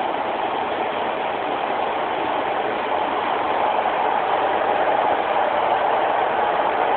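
Interior noise of a Class 156 Super Sprinter diesel multiple unit heard from inside the carriage: its underfloor Cummins diesel engine and running gear make a steady drone that grows slightly louder about halfway through.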